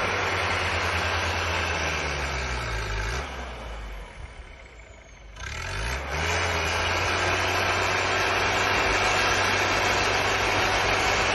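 4x4 pickup's engine running hard as it pushes through deep snow; about three seconds in the revs drop away, and about two seconds later they climb again to a steady run under load.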